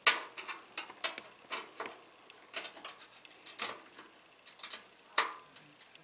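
Irregular clicks and light knocks of small hard computer parts being handled. The sharpest click comes right at the start and another about five seconds in.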